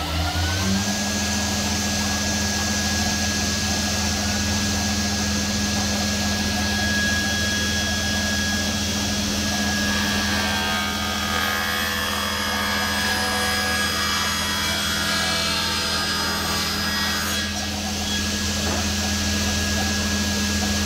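Sliding table circular saw coming up to full speed in the first second, then running steadily with a steady hum and whine. About halfway through, its blade rips a solid-wood board lengthwise along the rip fence for several seconds, then runs free again.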